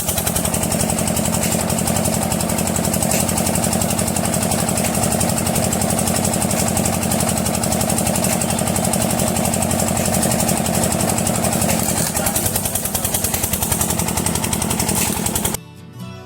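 Mahindra B 275 DI tractor's three-cylinder diesel engine running steadily with a rapid, even chug. It cuts off suddenly near the end.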